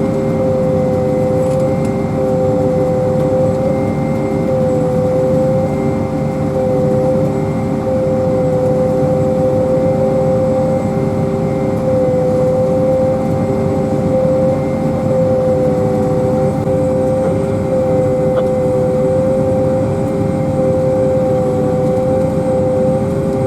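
Pea viner running steadily: a constant loud machine drone with a steady whine on top.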